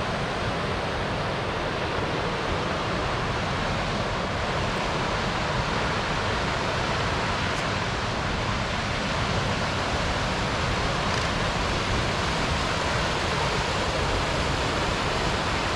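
Mountain creek rushing over cascades and shoals: a steady, even rush of water.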